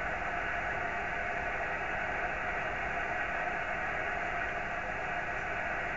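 Steady static hiss from an amateur radio receiver tuned to a satellite's CW beacon frequency, with no beacon signal coming through.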